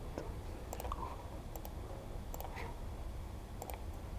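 A handful of sharp clicks from a laptop as menus are clicked through, about one every second, two of them quick double clicks, over a low room hum.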